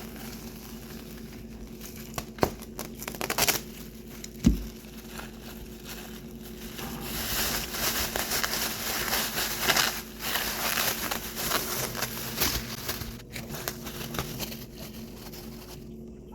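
Thin plastic bags crinkling and rustling as they are handled and filled with raw meat, with a couple of sharp knocks early on; the rustling grows busier through the middle.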